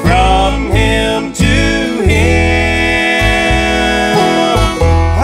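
Bluegrass band playing live on banjo, mandolin, acoustic guitar and upright bass, an instrumental passage between sung lines. Long held notes ring over a line of low bass notes.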